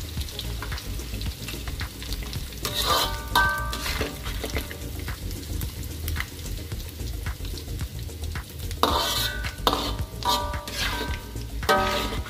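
Anchovies frying in hot oil in an aluminium wok, with a steady sizzle. A metal slotted skimmer scoops and drains the half-fried fish, and its scraping and clinking on the wok makes sharp clicks and short bursts of ringing, about three seconds in and again in the last few seconds.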